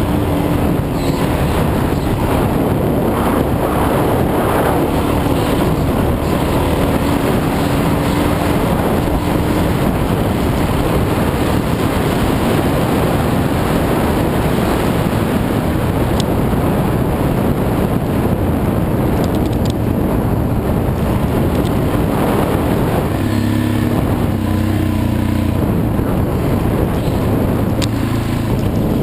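Off-road dirt bike engine running hard and changing revs as it is ridden along a rough trail, with wind rushing over the helmet-camera microphone. There are a few sharp clicks, and the engine note holds steadier for a few seconds near the end.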